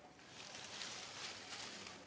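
Leafy undergrowth rustling as it is pushed through, a crackling swish that starts just after the beginning and lasts about a second and a half.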